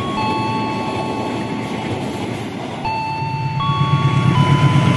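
A slow melody of plain electronic tones, stepping between pitches every second or so, over the rumble of a passing train. About three seconds in, a stronger low rumble from an approaching diesel locomotive rises beneath it.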